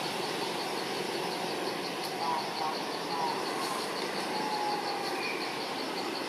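Insect chirping high and steady in an even, rapid pulsing rhythm, over constant background noise.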